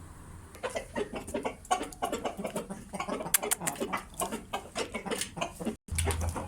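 Fighting rooster clucking in a quick run of short sharp calls, with a brief break near the end.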